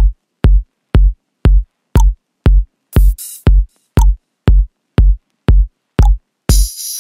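Electronic dance music: a deep drum-machine kick beating steadily about twice a second, with a brief hissy swell around three seconds in and a bright cymbal-like crash coming in near the end.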